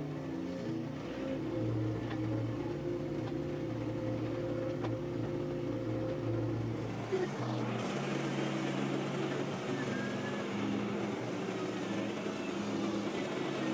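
A machine engine running under changing load, its pitch stepping up and down several times. About seven seconds in, a harsher, fuller noise joins it.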